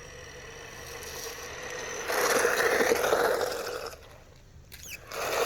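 Radio-controlled racing truck speeding past. Its motor whines steadily, and its tyres give two loud gritty scraping rushes, one about two seconds in and another near the end.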